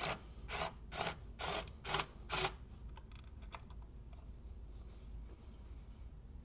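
Ratchet wrench on a wobble extension and deep socket loosening a 10 mm thermostat-housing bolt: six quick ratcheting strokes about half a second apart, then a few faint ticks.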